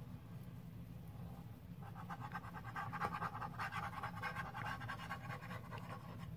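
Glue stick rubbed quickly back and forth over paper, a scratchy, faintly squeaky rubbing that starts about two seconds in and keeps going.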